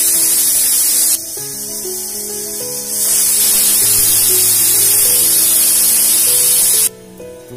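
Pressure cooker whistle lifting and venting steam in two long, loud hisses. The first stops about a second in; the second starts about three seconds in and cuts off suddenly near the end. These are the whistles counted to time the cooking of the dal.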